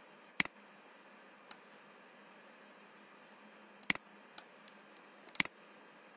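Computer mouse clicking: three sharp single clicks, about a second in, near four seconds and again a second and a half later, with a few fainter ticks between them, over a low steady hiss.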